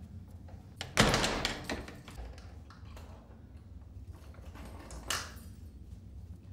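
A toilet-cubicle door slamming shut about a second in, the bang ringing briefly off the tiled walls. A softer, shorter noise follows about four seconds later.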